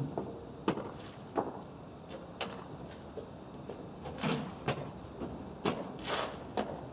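Irregular knocks, clunks and short scraping rushes of firefighting equipment and gear compartments being handled during an equipment inspection.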